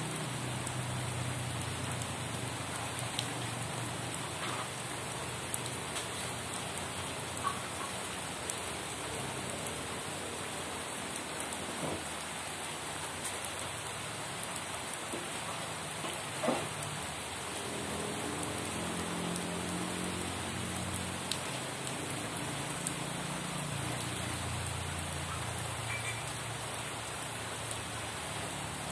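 Steady rain falling, an even hiss with scattered individual drops clicking on a surface, one sharper drop about halfway through.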